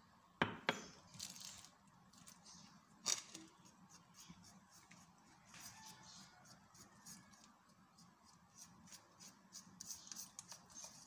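A metal fork clinking and scraping on a ceramic plate while stirring flour and water into batter: a few sharp taps in the first three seconds, then faint scraping and ticking that grows busier near the end.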